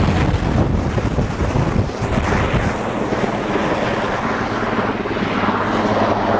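Firefighting helicopter close overhead: rotor downwash blasting the microphone with loud rushing wind noise over the helicopter's low rumble. About three seconds in, the buffeting eases into a steadier low hum.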